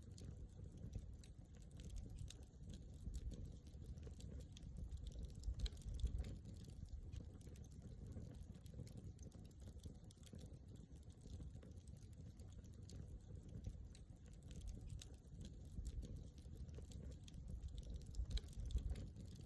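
Wood campfire crackling: small irregular snaps over a low rumble, with a louder snap about six seconds in and a few more near the end.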